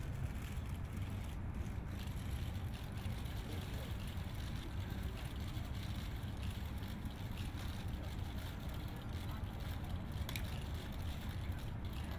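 Outdoor ambience: a steady low rumble of wind and distant city traffic, with no distinct events standing out.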